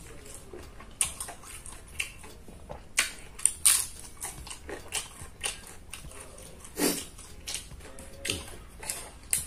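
Close-miked eating sounds: a person chewing and smacking his lips, irregular wet clicks and smacks, with the loudest few about three to four seconds in and another near seven seconds.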